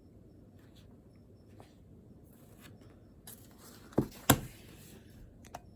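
Faint rustling and small clicks, then two sharp knocks about a third of a second apart around four seconds in, with a brief hiss around them.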